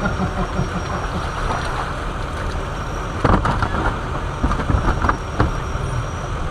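A steady low rumble, with brief splashes and knocks from hands working in the water of a boat's livewell, the strongest about three seconds in and two smaller ones near five seconds.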